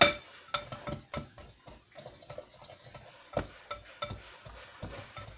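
Metal pastry blender cutting butter into a flour and sugar mixture in a glass bowl. Its blades click, scrape and knock against the glass in an irregular run of taps, the sharpest right at the start.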